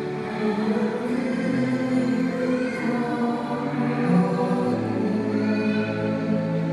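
A choir singing slow, sustained chords that change every second or so.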